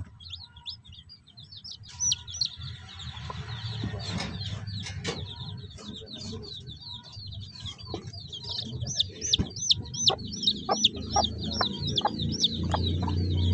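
Day-old native chicken chicks peeping in the nest: rapid, high, repeated cheeps that grow busier in the second half. A mother hen gives low clucks among them, with a few light knocks.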